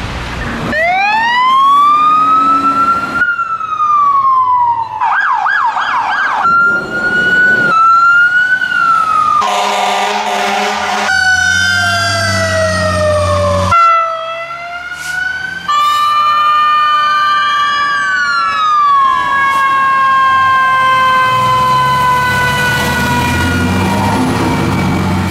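Fire truck sirens in a run of short cuts: a wail rising, a fast yelp about a quarter of the way in, a brief blast with a rough buzzing edge near the middle, then siren tones falling slowly in pitch through the second half over the trucks' engine noise.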